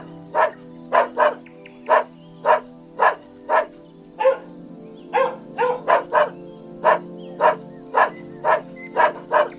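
Dog barking repeatedly, about two barks a second, over steady background music.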